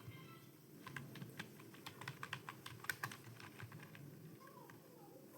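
Computer keyboard keys being typed on steadily at an uneven pace, quiet keystroke clicks during a typing speed test.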